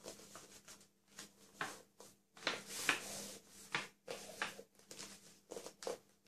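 Large sheet of origami paper rustling and crinkling as hands slide over it, fold it and press the crease flat, in irregular scraping bursts that are loudest around the middle.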